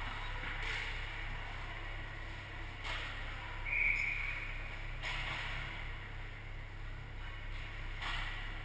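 Ice rink ambience during a hockey game: a steady low hum, a few brief distant swishes of play, and a short high whistle-like tone about four seconds in, as play stops at the far end.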